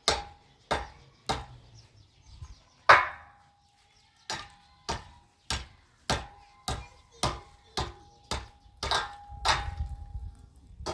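Regular hammer blows, about one and a half a second, each with a short metallic ring. They pause once, briefly, a little before halfway through, and one loud blow comes just before that pause.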